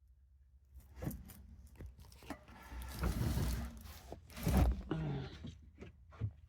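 Cardboard boxes of firework cakes being handled: scraping and sliding with a few knocks, the loudest about two-thirds of the way through.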